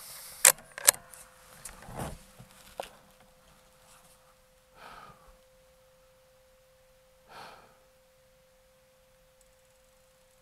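Sharp mechanical clicks and knocks from handling the rifle and adjusting its scope: two loud clicks close together, then a few softer knocks and rustles. Two breaths out follow, a couple of seconds apart.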